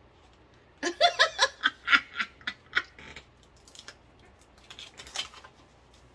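A woman laughing hard: a quick run of loud laughs starting about a second in, then trailing off into quieter chuckles.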